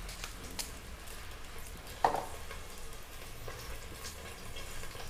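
Mustard seeds sizzling faintly in hot oil, with scattered small crackles as they start to heat for tempering. One sharper knock stands out about two seconds in.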